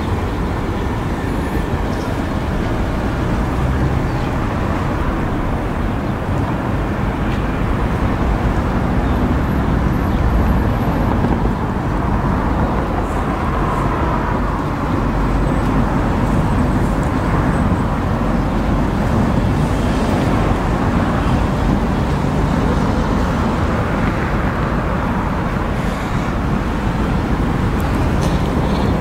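Steady noise of a running car, with the weight low down and no distinct events, from the 2005 BMW 745Li.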